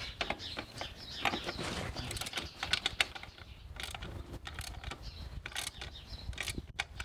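Socket ratchet wrench clicking in irregular runs as the pit bike's rear axle nut is snugged up, with light clinks of metal tools and parts.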